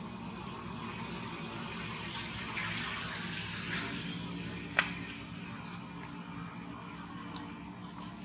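Steady rushing background noise that swells for a couple of seconds in the middle, with one sharp click about five seconds in and a few fainter ticks.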